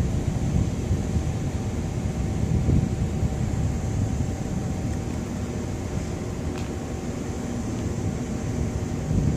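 Wind rumbling on the microphone in a storm, a steady low noise with a faint hum.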